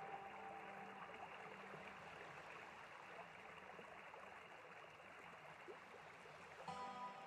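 Near silence: a faint steady hiss. Quiet background music fades out about a second in and comes back near the end.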